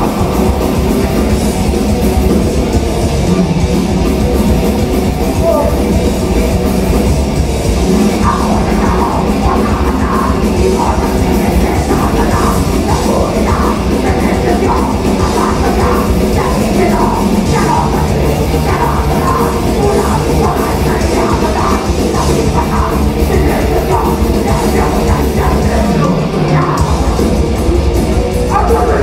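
Heavy metal band playing live, loud and unbroken: electric guitars over a drum kit, with a brief break in the bass about three seconds before the end.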